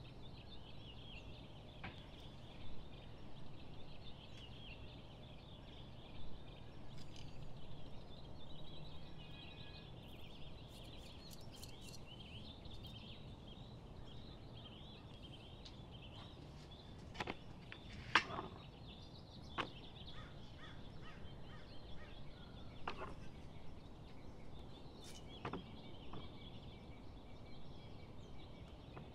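Quiet outdoor ambience: distant birds chirping over a low background rumble. A few short clicks and knocks come from handling, the loudest about two-thirds of the way through.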